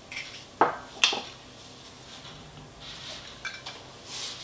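Two sharp knocks on a stainless steel mixing bowl about half a second apart, as a whole egg is added to the stand mixer, followed by quieter handling noise.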